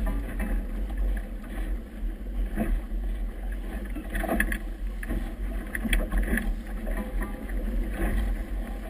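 Strong wind buffeting the microphone aboard a boat in choppy water, with irregular slaps of water against the hull and a signal flag flapping close by in a 17–20 knot wind.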